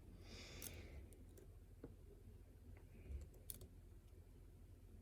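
Faint, scattered clicks of a lock pick and tension wrench working the pins of a pin-tumbler challenge lock, with a soft breath in the first second.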